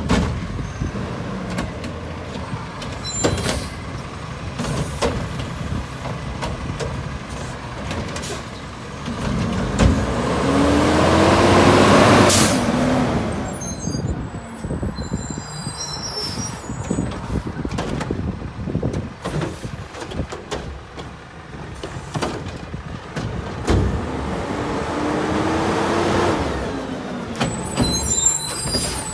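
Mack LEU garbage truck with a Heil Freedom front-loader body, its engine running and twice revving up and falling back, as a truck's engine does to drive the hydraulics for lifting and packing. Clanks and knocks, with short air hisses, come throughout.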